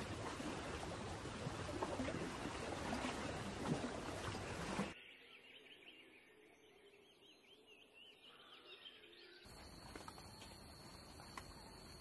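Steady rush of running water at a shoreline for about five seconds. After a sudden cut it turns to quiet ambience with small high twittering bird calls. About three seconds from the end it cuts again, to a steady high whine with a few soft ticks.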